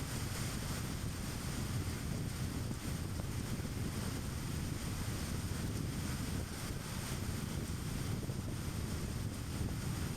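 Car travelling at a steady speed: a low, even rumble of tyres on the road and the engine, with a hiss of wind over it.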